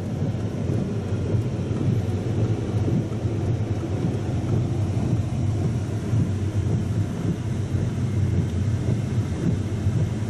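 Strong wind buffeting the microphone: a steady, low rumble that swells and eases slightly.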